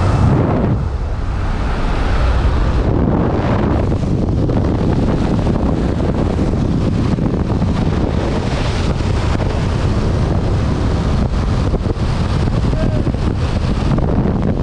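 Loud, steady wind rush buffeting the microphone in the slipstream at a jump plane's open door, with the aircraft's engine drone underneath.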